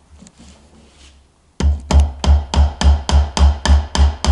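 Small hammer tapping a nail into a wooden stool frame to pin the end of a paper cord: quick, even strikes about three a second, each with a dull thud. The strikes start about a second and a half in, after a short pause.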